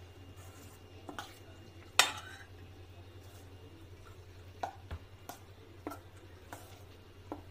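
Chopped vegetables and cheese being stirred in a stainless steel bowl: irregular knocks and scrapes against the steel. The loudest comes about two seconds in and rings briefly.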